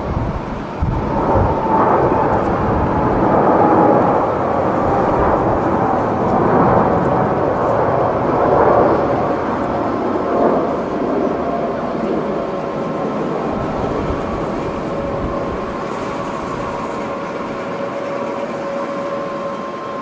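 Boeing 747-8's four GEnx-2B turbofans at takeoff thrust as the jet rolls down the runway and lifts off. A loud rumble, loudest through the first half, eases into a steadier sound with high fan tones as the aircraft climbs away.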